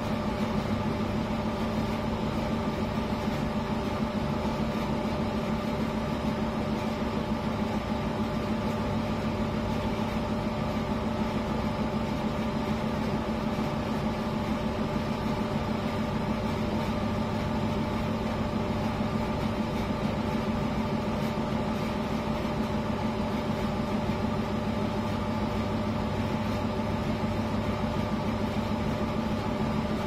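Early-1970s V-Zug Adora 4 washing machine running a steady spin: an even motor hum with a constant whine whose pitch does not change.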